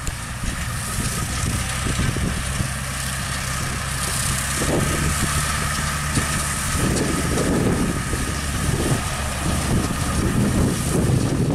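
Kubota L5018 tractor's diesel engine running steadily while driving a straw mower through rice straw at high speed, with a steady mechanical whine over the engine.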